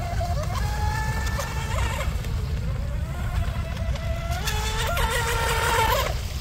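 Electric RC speedboat's brushless motor whining at speed, its pitch rising and falling with the throttle. It climbs sharply about four seconds in and cuts off just before the end.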